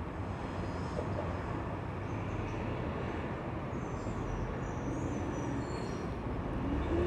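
Garbage truck's diesel engine running, a steady low rumble.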